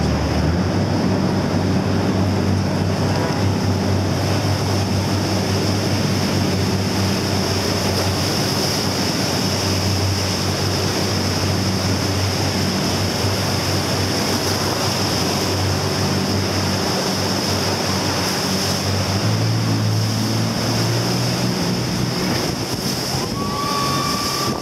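Jet boat running hard through whitewater rapids, with a steady engine hum under loud rushing, churning water. The engine pitch steps up about three-quarters of the way through.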